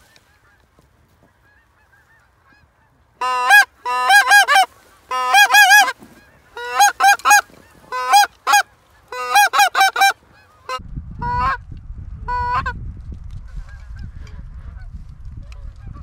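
Goose call blown in bursts of loud, clean honks, each breaking from a low note up to a higher one, sounding like Canada geese calling, from about three seconds in until near thirteen seconds. Low rumbling noise on the microphone follows in the last few seconds.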